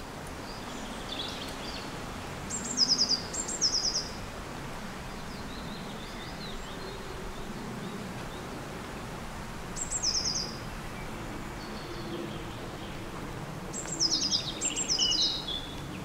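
Songbird calling over a steady background hiss of outdoor ambience: short phrases of quick high notes that step downward, heard three times, in the first few seconds, around the middle and near the end.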